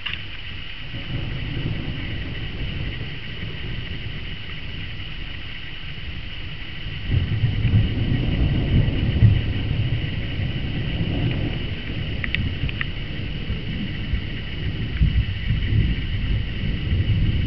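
Long rolling thunder: a low rumble that begins about a second in, swells to its loudest about eight to ten seconds in, and keeps rumbling unevenly after that.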